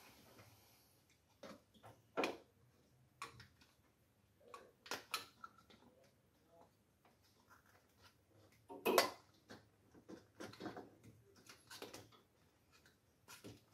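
Scattered plastic clicks, knocks and rubbing as an LED headlight bulb, its wiring plug and the rubber dust cover are handled and fitted into the back of the headlight housing. The loudest knock comes about nine seconds in.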